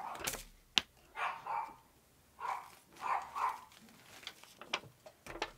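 Dogs barking repeatedly in short bursts, with a single sharp click about a second in.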